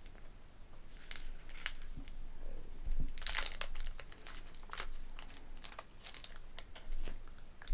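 Close-up chewing of a caramel-and-nougat candy bar: irregular sticky, wet mouth clicks, densest and loudest about three seconds in.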